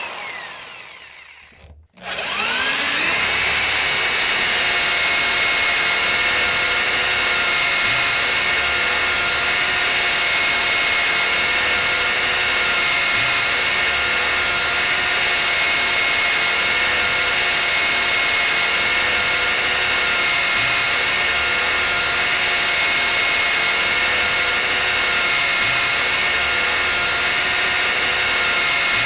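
Electric drill winding down and stopping, then starting again about two seconds in. Its whine rises quickly to full speed and runs at a steady high pitch.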